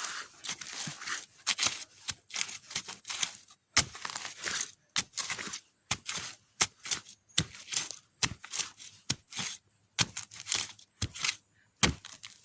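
Dry leaves and brush crackling and rustling in irregular bursts, with sharp snaps of twigs or stems breaking now and then, as someone works through bamboo undergrowth.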